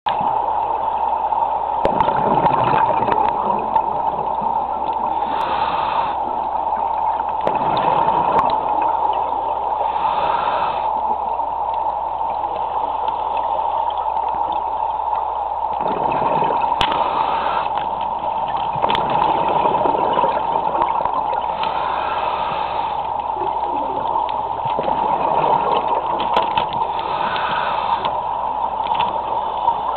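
Underwater sound: bubbling and gurgling water over a steady hum, with short hisses recurring every few seconds and a few sharp clicks.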